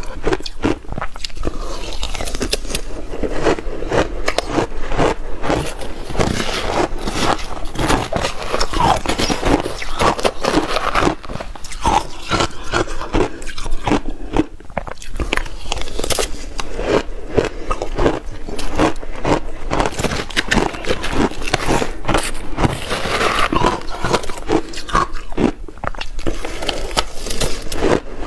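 Close-miked crunching and chewing of crushed ice mixed with passion fruit pulp: a dense, continuous run of crisp crackles.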